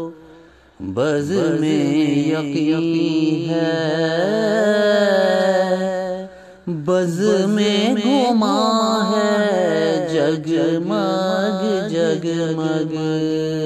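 A singer's voice drawing out long melismatic phrases of a Sufi devotional naat, with held notes and winding pitch ornaments and no clear words. It falls in two long phrases, with a short breath about six and a half seconds in.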